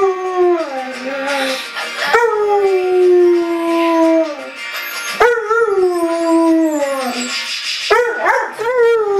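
Dog howling along to music: a run of long howls about every three seconds, each rising sharply at the start and then sliding slowly down in pitch, over background music.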